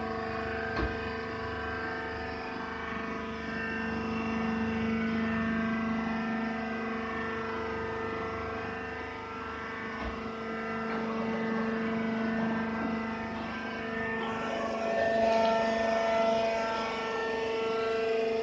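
Hydraulic baler running, a steady machine drone with an even pitched hum, growing a little louder near the end.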